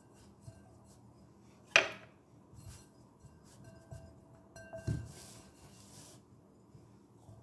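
Fingers rubbing grease around the inside of a glass mixing bowl: soft rubbing with short squeaks and small taps against the glass. A sharp knock on the glass about two seconds in is the loudest sound, and a softer thud comes near five seconds.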